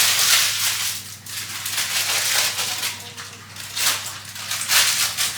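Baking paper crinkling and rustling in irregular surges as it is handled and pressed into a baking tray and dish.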